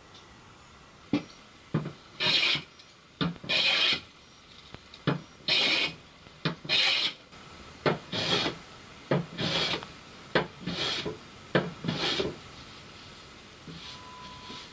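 A hand tool worked in repeated strokes across oak: about eight scraping strokes, each starting with a sharp knock as the tool meets the wood.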